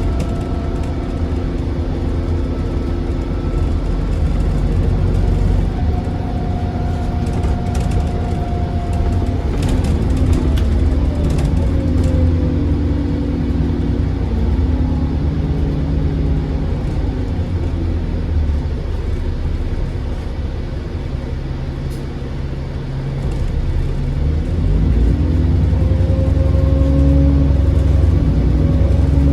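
Diesel engine of a single-deck or double-deck service bus (National Express Coventry 4881) running hard, with a turbocharger whistle above the engine note. The engine pitch falls about ten seconds in, eases off around twenty seconds, then climbs again in the last few seconds as the bus accelerates.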